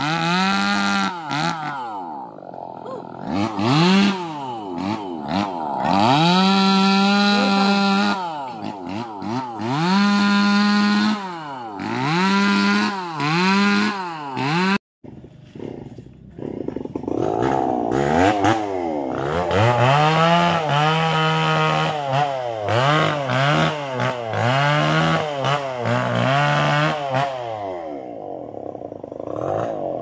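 Two-stroke chainsaw revved again and again, each time climbing to full throttle for a second or two and falling back to idle. The sound cuts out briefly about halfway, then carries on with quicker bursts of throttle.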